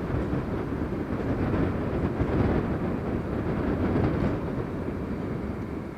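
A train passing: a steady low rumble of rolling wheels and railcars, beginning to fade away near the end.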